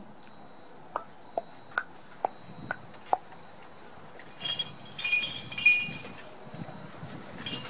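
Light metallic chiming: six sharp, evenly spaced clinks in the first few seconds, then a louder jingling burst of overlapping ringing tones around the middle.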